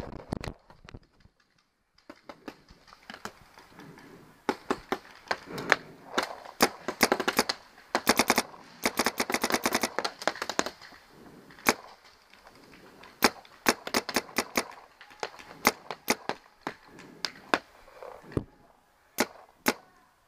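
Paintball markers firing, including a Planet Eclipse Geo 3 electronic marker: sharp pops in single shots and short strings, with one fast ramping string about eight to ten seconds in.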